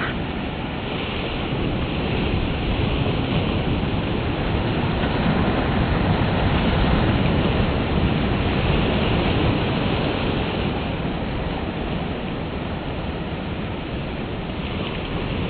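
Ocean surf washing onto a sandy beach, a steady rush that swells slowly towards the middle and eases again, with wind rumbling on the microphone.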